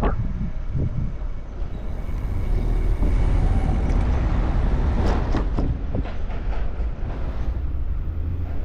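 Wind rushing over the microphone of a moving bicycle, a steady low rumble, with a run of short sharp sounds about five to seven seconds in.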